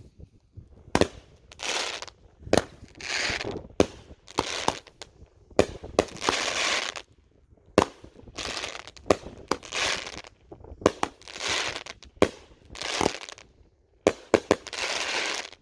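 Consumer firework cake firing a run of shots, about one a second. Each is a sharp launch pop followed by a noisy burst of up to a second as the shell breaks. The shots stop suddenly near the end.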